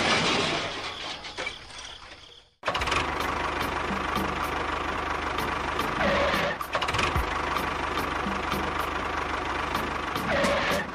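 A loud noise fades out over the first two seconds. After a sudden cut, a steady mechanical running sound like an engine ticking over starts, with light regular ticking.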